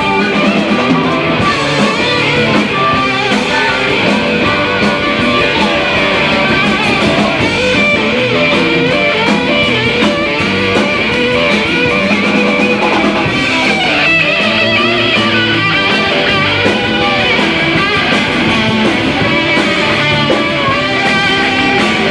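Live blues-rock band playing an instrumental passage led by guitar, dense and steady in loudness.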